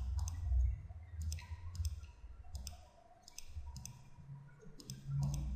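Computer mouse buttons clicking: a series of short, sharp single clicks at irregular intervals, over a low background hum.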